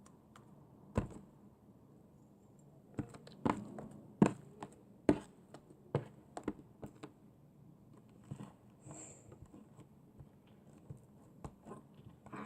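Irregular light taps and knocks of hands handling slime and a plastic slime press toy: a single knock about a second in, a cluster of louder taps a few seconds later, then fainter ticks.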